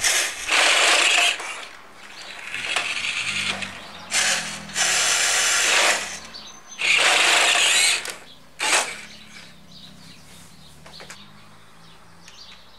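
Electric drive motor and plastic gearbox of a 1:20 RC dump truck whirring in four spurts of up to two seconds as it climbs a trailer ramp, the last one brief, then only a faint hum.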